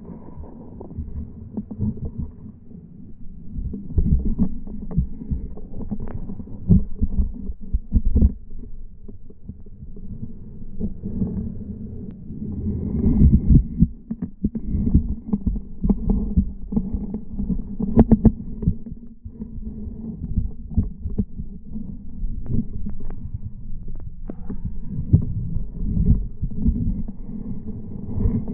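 Muffled underwater audio from a camera held beneath the surface of shallow, weedy water: a low rumble broken by many irregular knocks and thumps.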